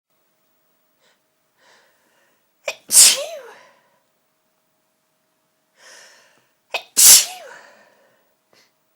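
A person sneezing twice, about four seconds apart. Each sneeze is a loud, sudden burst, with a short sharp catch of breath just before it and a fainter breath in ahead of that.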